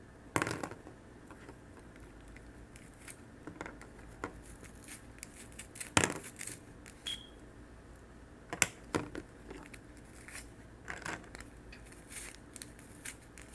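Hair rollers being taken off a set hair weft by hand: scattered plastic clicks and rustling as each roller is unfastened and slid down off the hair.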